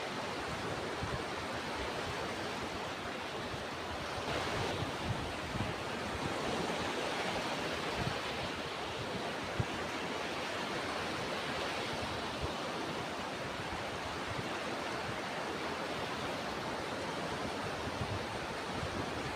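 Ocean surf: a steady rush of waves that swells a little now and then.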